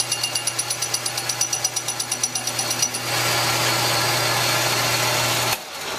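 Metal lathe taking a light facing cut with a carbide tool on a cast-iron live-steam locomotive wheel. A steady motor hum runs under cutting noise that pulses several times a second at first, then turns continuous and louder about three seconds in, and the lathe shuts off near the end. The cut cleans up the face only partly, because the wheel runs a little out of true.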